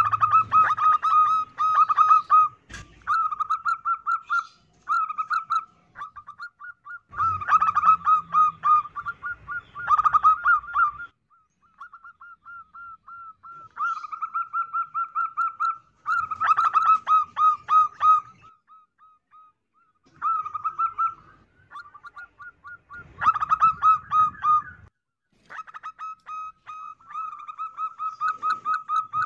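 Female zebra dove (perkutut) cooing in repeated phrases of rapid staccato notes, with short pauses between phrases. A single sharp click sounds about three seconds in.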